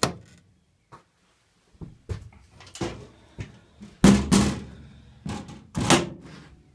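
Sheet-metal cabinet doors and latches on an EMD GP10 locomotive's electrical cabinet being handled: a string of separate metallic knocks and clanks, the loudest about four seconds in. No engine is running.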